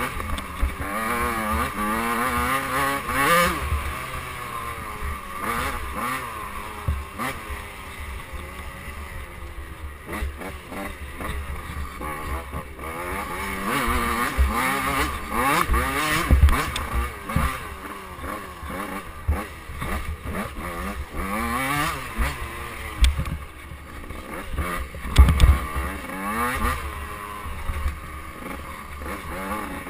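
KTM 85cc two-stroke dirt bike engine revving up and down again and again as it is ridden over a rough trail, with the pitch rising and falling through throttle changes and shifts. Low thumps come from bumps along the way, the loudest about 25 seconds in.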